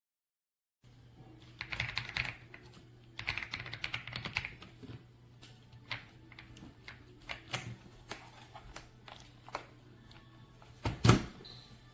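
Typing on a RedThunder K95 gasket-mounted mechanical keyboard: two quick flurries of key clacks, then single keystrokes spaced apart, and a louder clack near the end.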